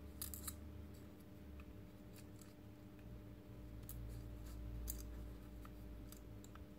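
Faint, scattered clicks and taps of small black plastic robot-arm parts being handled and pressed together, a quick cluster at the start and then single clicks about every second, over a steady low hum.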